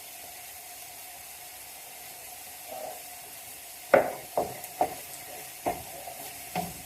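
Mince, mushrooms and onions sizzling faintly in a frying pan, then from about four seconds in five sharp knocks of a utensil or tin against the pan, the first the loudest.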